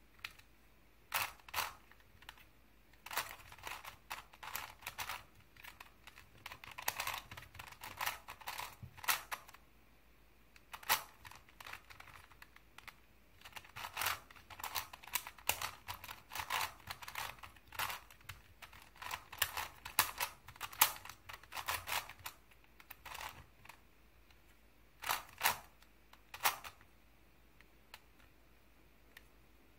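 Plastic layers of a Crazy 3x3 Plus Mars puzzle cube being turned by hand: quick clacking in bursts of several turns, with short pauses between bursts.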